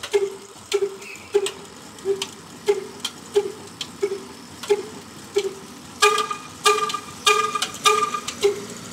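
Large old single-cylinder horizontal diesel engine with a heavy flywheel, running slowly in even beats, about one and a half a second, each beat a thud with a metallic clack. From about six seconds in, each beat also carries a higher ringing note.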